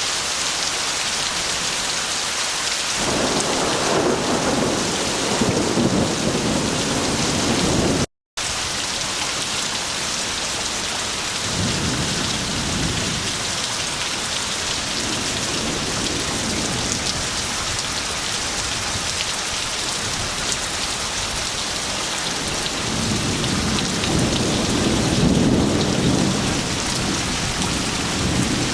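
Heavy rain pouring steadily, with low rolls of thunder swelling three times: a few seconds in, near the middle, and near the end. The sound cuts out for a split second about eight seconds in.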